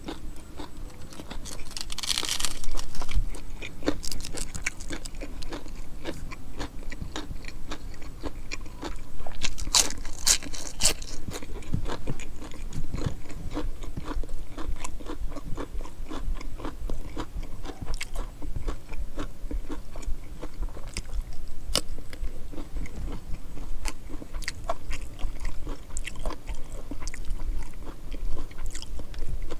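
A person chewing and crunching food close up. Loud crunchy bites come about two seconds in and again around ten seconds in, with steady chewing and small mouth clicks between them.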